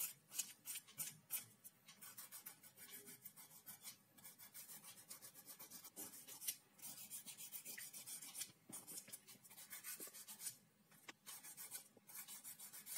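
Hand nail file rasping a dog's toenails in short, quick back-and-forth strokes, with a few brief pauses.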